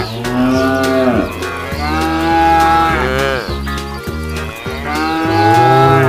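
Cow mooing: three long, drawn-out moos, each rising and then falling in pitch, the first at the start, the second about two seconds in and the third near the end.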